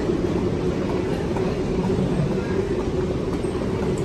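Steady low rumble with a constant droning hum, typical of an underground airport people-mover station: train and machinery noise, no single event standing out.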